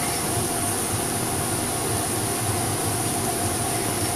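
Domestic cat purring with a steady low purr while kneading a blanket, over a constant high-pitched hiss from the recording.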